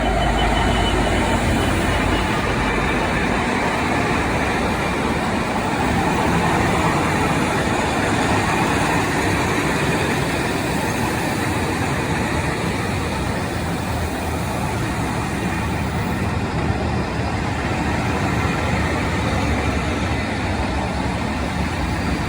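Locomotive-hauled passenger train passing through a station: loud, steady running noise of wheels on the rails that builds just at the start and then holds.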